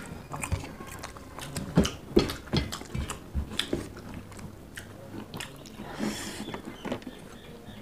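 Two people eating rice with their hands: irregular chewing and lip smacks, mixed with clicks and scrapes of fingers working rice on steel plates.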